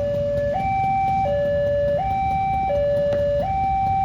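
Electronic warning alarm at a railway level crossing, sounding a continuous two-tone signal that alternates between a higher and a lower tone about every 0.7 seconds. It warns that a train is approaching and the gate is closing. A low rumble runs beneath it, with a single click about three seconds in.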